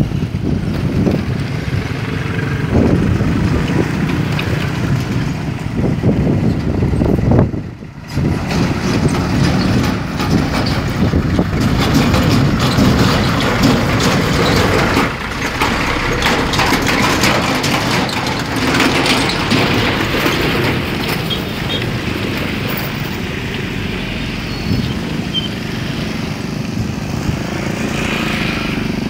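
Motorcycles and a heavy truck driving over a railway level crossing close by: several engines running, with the truck's engine and tyres rumbling past, briefly cut off about eight seconds in.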